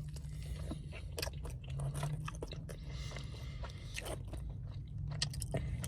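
A person biting and chewing food close to the microphone, with irregular crunches and wet clicks, over a steady low hum.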